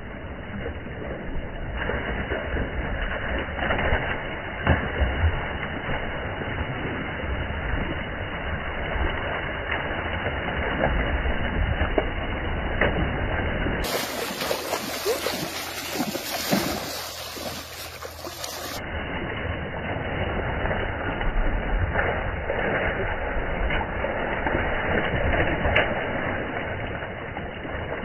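Shallow river water splashing and sloshing as people run and wade through it, with scattered sharp splashes.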